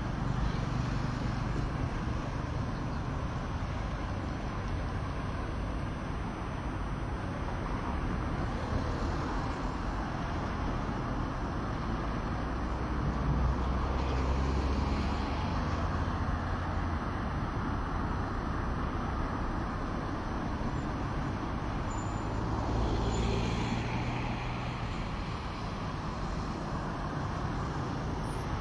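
Road traffic: a steady noise of passing vehicles, with two louder, rumbling passes, one around the middle and one about three-quarters of the way through.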